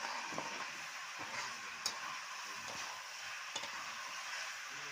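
Chicken pieces sizzling in oil in a pan over a wood fire during kosha, the dry-frying stage once the meat has released its oil. A steady frying hiss, broken by a few sharp clicks.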